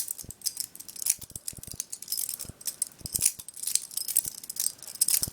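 Butterfly knife (balisong) being flipped open and closed in the hand, its metal handles and blade clicking and clacking against each other in a run of irregular metallic clicks with a jingling ring.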